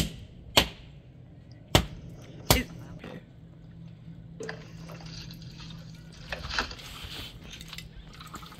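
A whole coconut struck hard against a concrete wall four times to crack the shell, each strike a sharp knock. From about four seconds in, coconut water trickles out of the cracked nut into a plastic cup.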